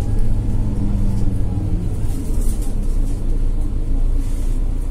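Mercedes-Benz Citaro C2 G articulated bus with its OM936 six-cylinder diesel running, heard from inside the passenger cabin as a steady low rumble.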